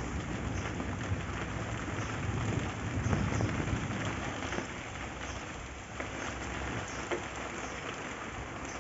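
Heavy rain pouring steadily onto a courtyard, with scattered sharp taps of drops striking close by.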